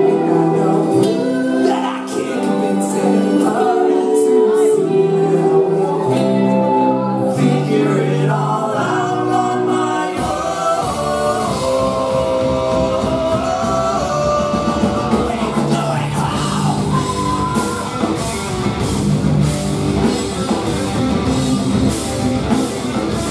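Live ska band with horns, electric guitars and singing playing loudly: for the first ten seconds held notes ring out without drums, then about ten seconds in the drums and bass come in and the whole band plays on with singing and shouts.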